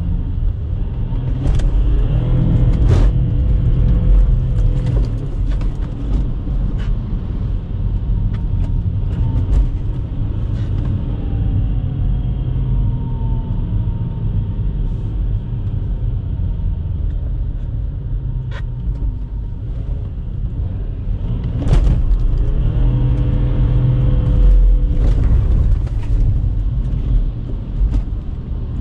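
Audi A4 B8's 3.0 TDI V6 diesel engine, heard from inside the cabin, pulling hard twice under throttle (about two seconds in and again past twenty seconds), its pitch rising each time. Between the two it runs quieter, with a falling pitch as it eases off, and scattered sharp clicks are heard throughout.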